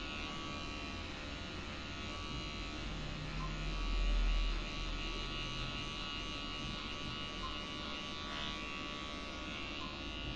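Electric hair clippers running with a steady buzz as they cut short hair at the back of the head. A low rumble swells briefly about four seconds in.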